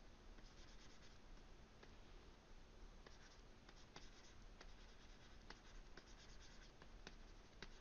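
Faint scratching of a stylus on a graphics tablet while sketching rough construction lines: short strokes with sharp little taps about once a second.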